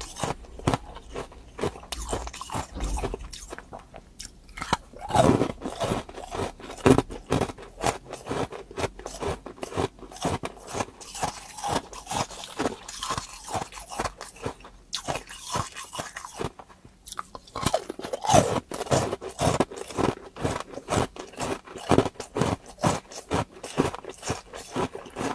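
A person biting and chewing hard ice cubes close to the microphone: a rapid run of sharp, loud crunches and cracks, with a few brief pauses between bites.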